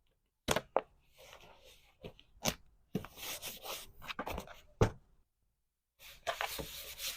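Packing sounds: plastic wrapping rustling and crinkling, with several sharp clicks and taps as items are handled. The loudest click comes about five seconds in. The sound cuts off to dead silence for a moment near the start and again after the loudest click.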